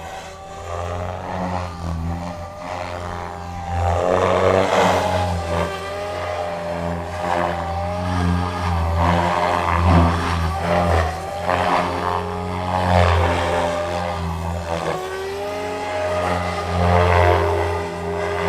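SAB Goblin 500 electric RC helicopter flying aerobatics: a steady low rotor buzz under a motor and tail-rotor whine that bends up and down in pitch. The sound swells in loudness again and again as the blades load up in the manoeuvres.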